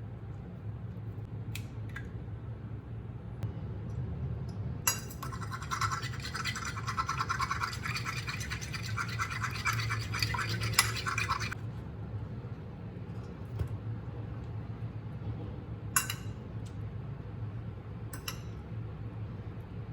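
Rapid back-and-forth scrubbing strokes for about seven seconds, starting about five seconds in, over a steady low hum, with a few light clicks near the end.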